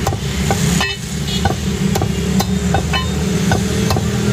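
Meat cleaver chopping chicken on a wooden chopping block, quick repeated strikes about three a second. Under it, a steady rumble of vehicle traffic.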